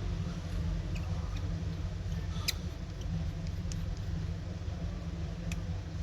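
A few small, sharp clicks of a tiny precision screwdriver working the iPhone 6's pentalobe screws, the clearest about halfway through, over a steady low background hum.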